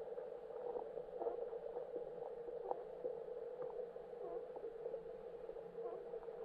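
Underwater lake ambience heard from the lake bed: a steady, even hum with faint, irregular clicks and ticks scattered through it.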